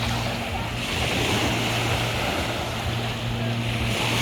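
Sea water rushing and wind on the microphone, swelling and easing every second or two, over a steady low engine hum.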